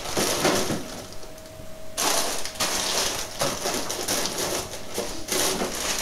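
Plastic packets of frozen chicken slices rustling and crinkling as they are handled and packed into a plastic freezer drawer, lighter at first and busier from about two seconds in.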